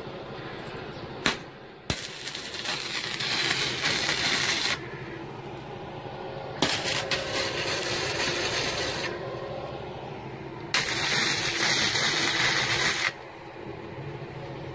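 MIG welding arc from a small MultiPro 450W welder, struck three times in runs of about two and a half seconds each, every run starting and cutting off abruptly.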